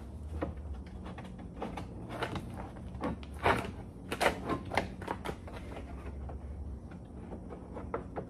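Plastic snaps and clips of a Mercedes Sprinter's front grille being worked loose by hand: scattered clicks and knocks of plastic, a few sharper ones around the middle. A steady low hum underneath stops near the end.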